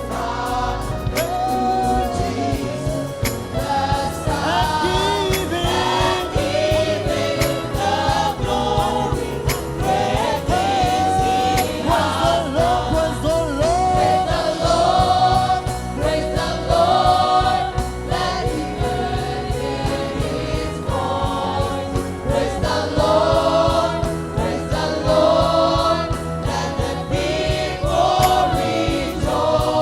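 Gospel praise singing: a group of voices singing together over a band with a steady beat.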